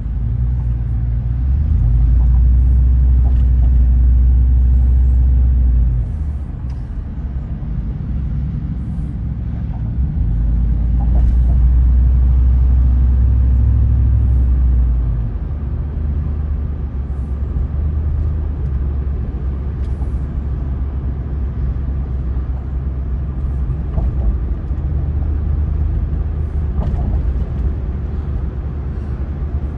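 Car driving at road speed, heard from inside the cabin: a steady low rumble of tyre and road noise that swells louder twice, for several seconds each time.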